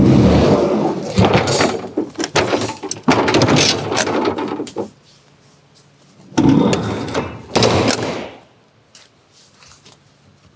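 Rear swing doors of a truck's box trailer being pushed shut: a run of knocks and metal clanks for the first five seconds, then a second burst of clanks as the other door is closed, a little after six seconds.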